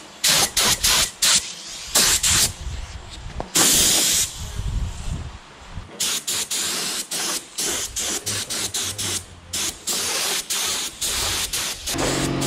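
POR15 high build primer being sprayed onto a car fender in repeated short hissing bursts, with a longer spray about four seconds in.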